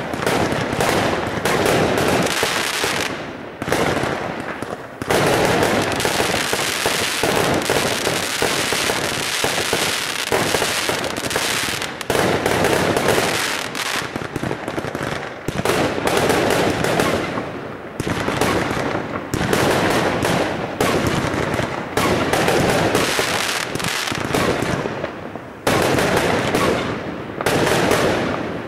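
Aerial fireworks bursting in quick succession, a dense run of bangs and crackling with a few short lulls.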